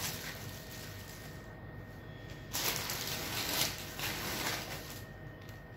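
Clear plastic wrapping crinkling and rustling as it is handled and pulled off a folded saree, in a few bursts, the loudest from about two and a half to three and a half seconds in.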